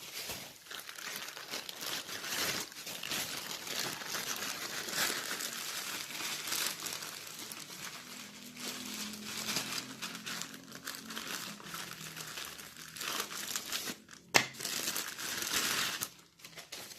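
Plastic packaging being crumpled and torn open by hand, a continuous crinkling and rustling, with one sharp click near the end.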